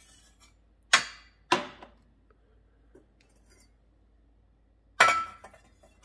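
Hard clinks of tableware on the coffee machine's metal drip tray: two knocks a half-second apart as the enamel mug is lifted off and set down, then about five seconds in a louder clank with a short ring as a stainless steel milk jug is set on the drip tray.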